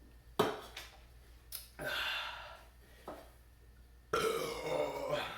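A man belching several times in a row from gas after chugging carbonated Red Bull energy drinks. The burps come as short and drawn-out ones, with a long burp lasting about a second near the middle and a longer one at the end.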